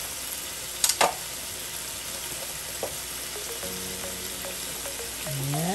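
Diced chicken, tomato and onion sizzling steadily in a stainless steel pan, with two sharp clicks about a second in.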